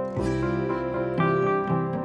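Instrumental background music of plucked notes, with a new note or chord starting every half second or so.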